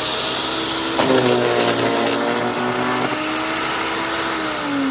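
Earthwise electric wood chipper running at speed. About a second in, a branch is fed in, and the motor drops in pitch and labours with a rattling crunch for about two seconds while it chips the wood. It then runs free again, its pitch starting to fall near the end as it winds down.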